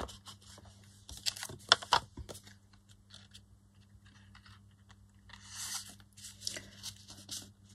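Paper and card being handled on a cutting mat: rustling, sliding and light taps, with a cluster of sharp clicks and rustles between about one and two and a half seconds in and a longer rustle around five and a half seconds in.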